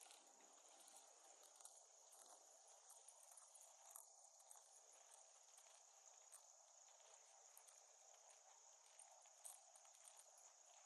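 Near silence outdoors, with faint steady high-pitched insect chirring and scattered light ticks.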